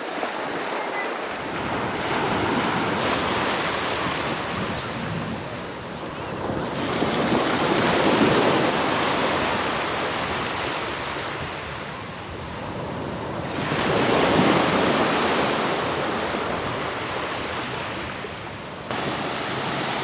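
Sea waves breaking and washing ashore, swelling loudest twice, about eight and fourteen seconds in, with wind buffeting the microphone.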